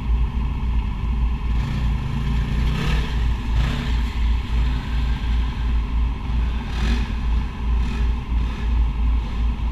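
Side-by-side UTV's engine idling with a steady low rumble.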